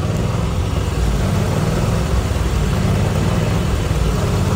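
Ford 6.7-litre Power Stroke V8 turbo-diesel of a 2011 F-550 idling, a low, even rumble that sounds healthy.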